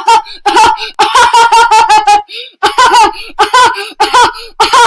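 Loud, high-pitched laughing that comes in short bursts about twice a second, each one a run of rapid 'ha ha' pulses.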